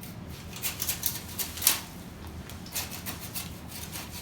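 Hand saw cutting through the trunk of a freshly cut Christmas tree, a run of rasping strokes several a second with a short pause midway.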